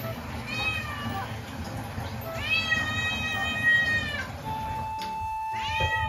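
Domestic cat meowing three times: a short meow, then a long drawn-out one lasting nearly two seconds, and a third starting near the end, over background music.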